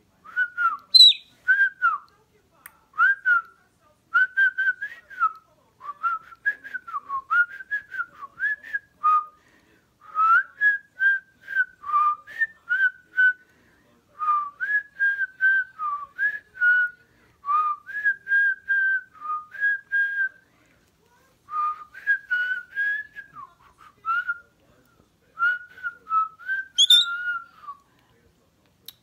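A pet galah (rose-breasted cockatoo) and its owner whistling a tune together: quick short notes that go up and down in phrases of a second or two, with brief pauses between, and one sharper, higher note near the end.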